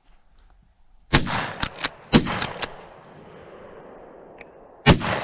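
Three shotgun shots from a pump-action shotgun: two about a second apart early on, the third near the end, with fainter sharp cracks among them.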